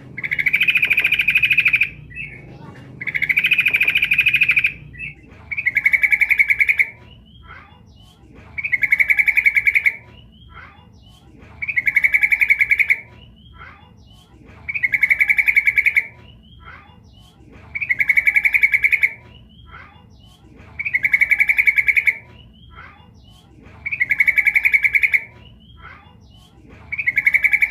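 Female sooty-headed bulbul (trucuk) calling: a short, quick-pulsed call repeated at a very even pace, about once every three seconds, each call lasting about a second. This is the female's call, used as a lure to draw males into answering.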